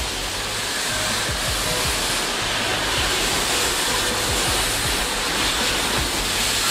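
Ty2 steam locomotive, a 2-10-0 war engine, moving slowly past at close range with a loud, steady hiss of venting steam.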